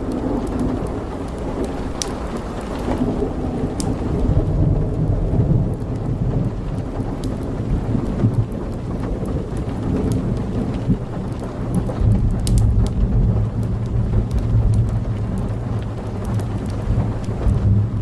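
Heavy rain pouring, with scattered sharp drop hits and a deep low rumble underneath that swells twice.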